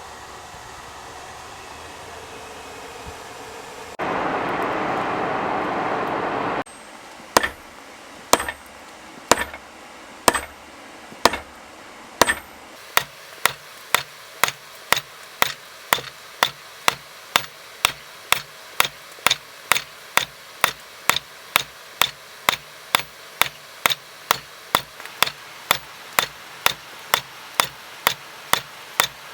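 Hand hammer striking hot steel bar on an anvil, tapering tong reins with repeated set-downs. A few spaced blows come first, then a steady rhythm of about two ringing strikes a second. Before the hammering, a loud rushing noise lasts about two and a half seconds.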